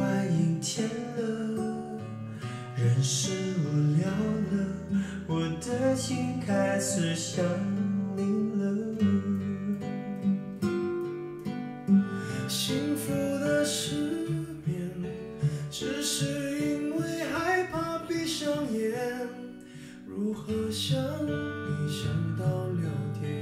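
Guitar-led music with some singing, played through a Bowers & Wilkins Formation Wedge wireless speaker and picked up by the room microphone as a listening demo of the speaker.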